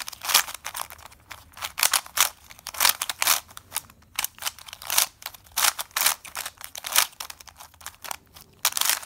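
Plastic speedcube being turned by hand through algorithms: quick, irregular clicking and clacking of the layers, several turns a second.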